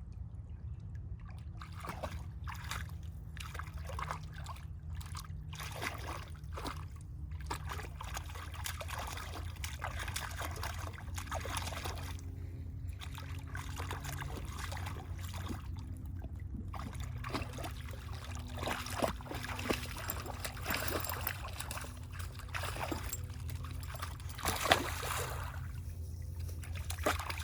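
A dog splashing and wading in shallow pond water, with irregular sloshes and trickles.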